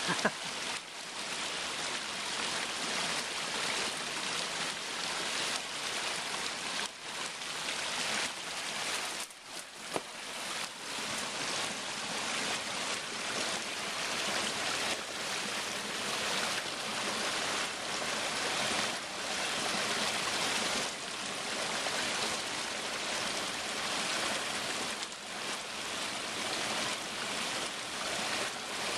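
Small mountain creek rushing steadily over rocks in a shallow riffle.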